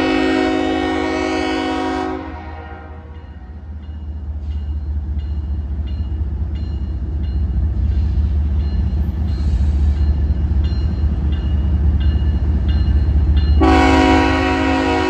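Horn of BNSF 8040, the lead diesel locomotive of an approaching grain train, blowing two long blasts: the first ends about two seconds in and the second starts near the end. Between the blasts the locomotive's deep rumble grows steadily louder as it nears, with a faint regular ding.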